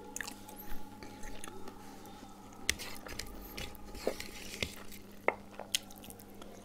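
Eating with the hand: fingers mixing rice and curry on a ceramic plate, with scattered short clicks and wet smacking sounds, then chewing.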